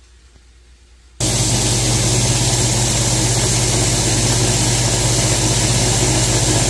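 Small electric blender grinding raw sunflower seeds into butter: the motor switches on abruptly about a second in and runs steadily, a loud hum under a rushing grinding noise.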